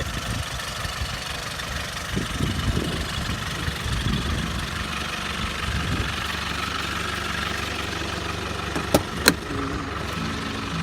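Land Rover Discovery's 200Tdi turbodiesel engine idling steadily, with two sharp clicks near the end.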